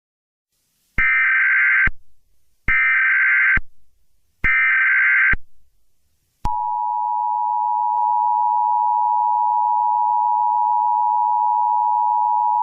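Emergency Alert System broadcast tones: three bursts of the digital SAME header, each about a second long, then from about six and a half seconds in the steady two-tone attention signal, held without a break.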